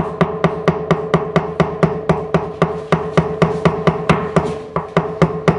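Background music: a steady held note over a quick, even percussive beat of about four or five strikes a second, which starts and stops abruptly.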